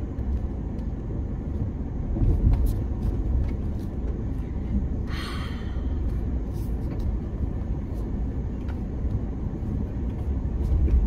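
Suzuki Jimny crawling slowly over loose rocks: a steady low rumble of engine and drivetrain, with scattered light clicks and knocks and a short hiss about five seconds in.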